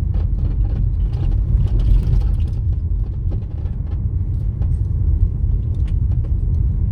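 A vehicle driving along: steady low rumble of engine and road noise, with scattered light clicks and rattles.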